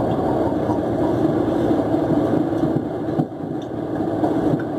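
Fishing boat's engine running steadily, with a short knock a little after three seconds in.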